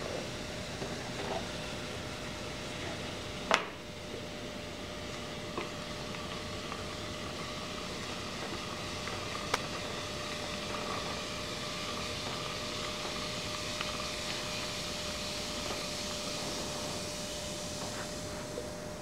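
A plastic jug is set down on a table with one sharp knock about three and a half seconds in, followed by a couple of lighter taps. Behind it is a steady hiss with a constant hum.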